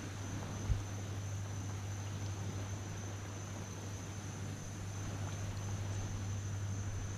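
Steady high-pitched drone of insects in the marsh, with a low steady hum underneath and a single dull knock about a second in.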